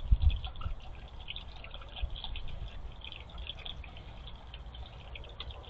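Water dripping and trickling in a continuous patter of small drips, with a few dull low thumps in the first half second.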